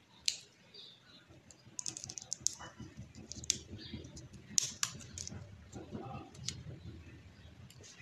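Fingers handling the wire leads and plastic parts of an opened electric fan's motor, making scattered small clicks and crackles, some in quick clusters, over a faint rustle.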